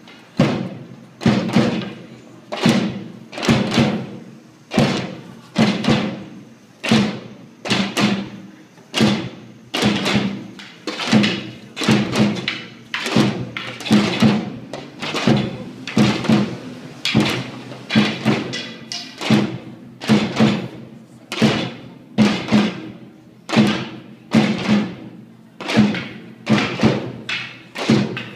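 A drum beaten in a slow, steady rhythm of sharp strokes, about one and a half a second, with a knocking, wood-like attack on each stroke.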